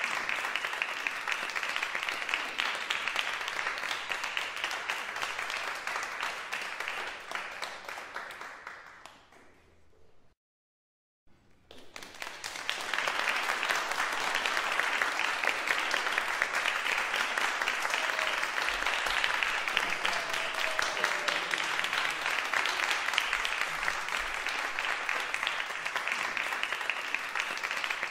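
A crowd applauding, dense clapping that fades away about ten seconds in. After a second of silence, a new round of applause swells back up and carries on steadily.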